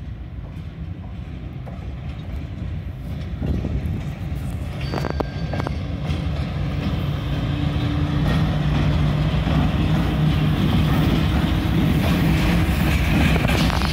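VL10U electric locomotive approaching and passing with a freight train, growing steadily louder: a steady electric drone from its traction motors and cooling fans over the rumble of wheels on the rails. A brief high whistle-like tone sounds about five seconds in.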